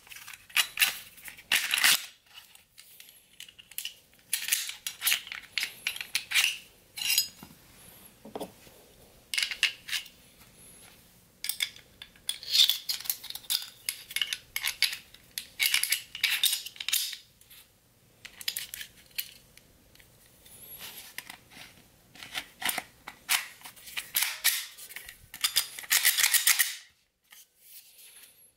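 Clicks, scrapes and rattles of a gas blowback airsoft Glock 17 being field-stripped and put back together: the slide, recoil spring guide and barrel handled and fitted. The clicks come in irregular clusters, busiest around the middle and again near the end as the slide goes back on.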